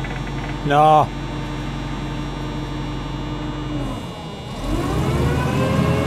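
Large rigging forklift's engine idling steadily, dipping just before four seconds in and then revving up and holding at a higher speed. A brief shouted call is heard about a second in.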